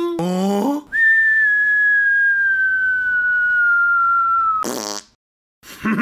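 A single long whistled note, held for nearly four seconds and sliding slowly down in pitch. It ends in a short burst of hissy noise.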